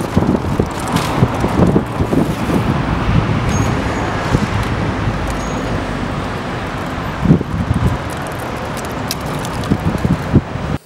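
Steady city road traffic, cars and buses passing on a busy street, with wind buffeting the microphone in irregular low thumps. The sound cuts off abruptly at the end.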